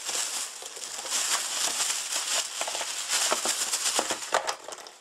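Plastic packaging crinkling and crackling as it is handled close to the microphone, a dense run of quick crackles.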